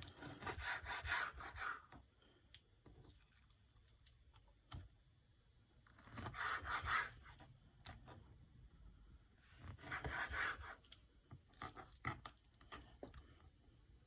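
A knife sawing through salmon fillet against a cutting board, in several bursts of back-and-forth strokes lasting a second or two each.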